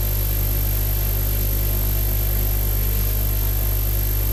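Steady electrical hum and buzz with an even hiss, unchanging throughout: mains hum in the audio chain.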